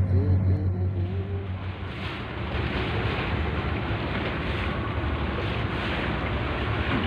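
Low, steady hum of a ship's engine. About two seconds in it gives way to a steady rush of wind on the microphone over the low rumble of a vessel's engine.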